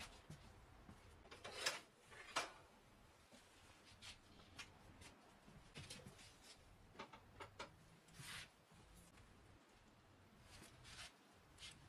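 Near silence with faint handling noises: a dozen or so brief rubs and light knocks as small parts are handled on a wooden workbench, the two loudest about two seconds in.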